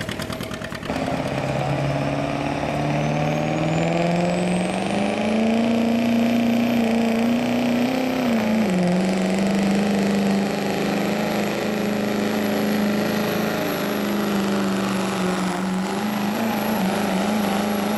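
Chevrolet Silverado pickup's turbocharged diesel engine running hard under full load while pulling a sled. The engine note climbs over the first five seconds with a high whistle rising alongside it, dips briefly about nine seconds in, then holds steady at high revs.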